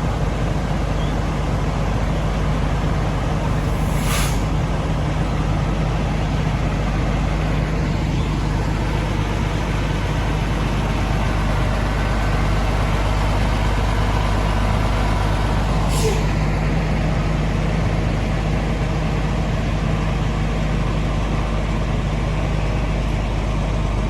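Fire truck's diesel engine running steadily while backing up, with a short air-brake hiss about four seconds in and another about sixteen seconds in.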